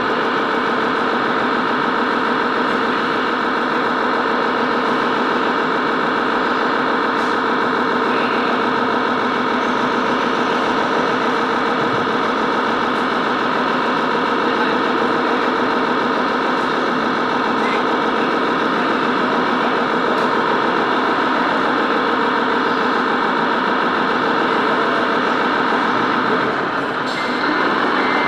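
Radio-controlled scale model truck driving, with a steady truck-engine sound from its onboard sound unit. Short repeated reversing beeps start near the end.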